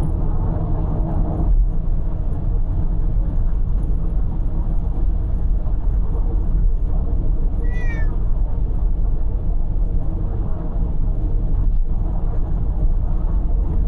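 Steady road and engine noise inside a moving car's cabin, with a cat in the car giving one short, high meow that falls in pitch about eight seconds in.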